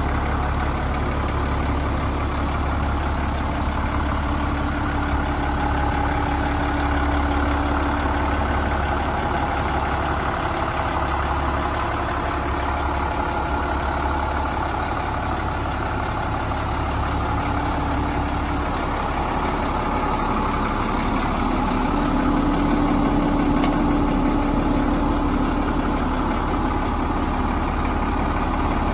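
Tanker truck's diesel engine idling steadily.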